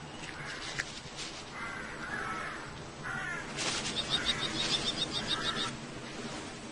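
Bird calling: a few short harsh calls, then a rapid run of short high notes for about two seconds before it stops.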